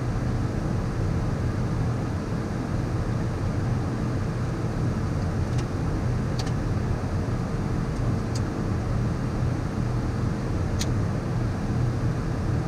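Steady in-flight cockpit noise of a Beechcraft Premier 1A business jet on descent: a constant rush with a faint steady tone underneath. A few faint ticks are scattered through it.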